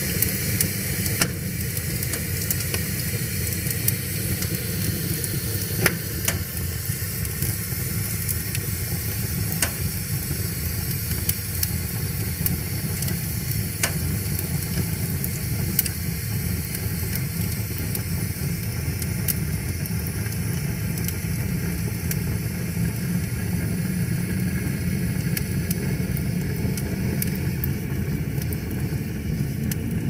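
Wood fire of split logs burning: scattered sharp crackles and pops over a steady low rumble.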